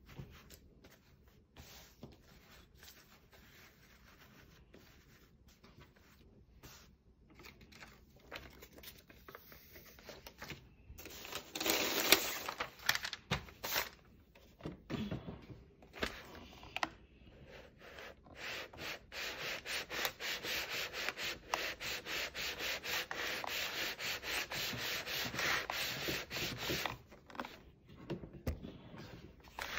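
Rubbing and scraping, at first scattered and faint, then a louder run of quick, even rubbing strokes for several seconds in the second half.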